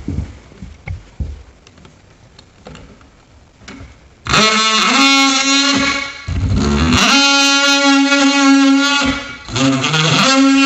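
Oscillating multi-tool cutting out the back of a plastic electrical box. After a few seconds of light handling knocks, the tool starts about four seconds in with a loud, steady buzz. It drops in pitch twice, briefly, then runs on.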